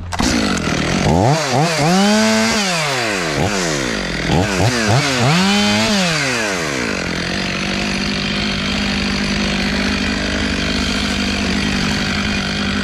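Stihl MS 500i two-stroke chainsaw with a 25-inch bar, revved up and down in a string of throttle blips for about seven seconds, then held at a steady high speed.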